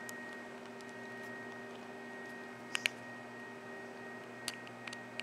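A few faint, sharp clicks of a small screwdriver and parts against a plastic G-Shock watch case: a quick pair a little under three seconds in, and more near the end. Beneath them is a steady electrical hum.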